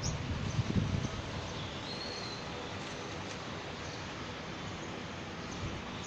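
Steady outdoor ambient noise, an even hiss with a little low rumble in the first second, and one faint high chirp about two seconds in.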